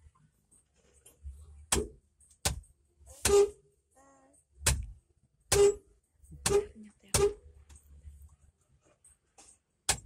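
Suzuki Carry's horn tapped in short jabs: eight brief toots at uneven gaps of roughly a second, each cut off quickly.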